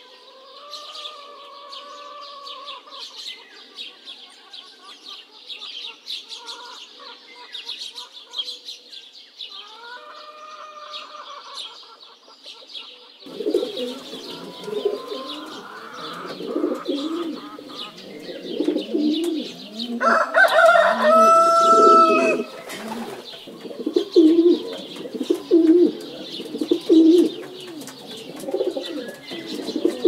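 Mixed aviary birdsong: small parrots chirping continuously, pigeons cooing in a repeating rhythm from about halfway through, and a rooster crowing once about two-thirds of the way in.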